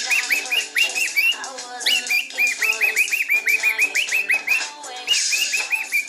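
Cockatiel whistling quick runs of short rising-and-falling chirps, about six a second, in three bursts, over drum-kit music playing from a tablet.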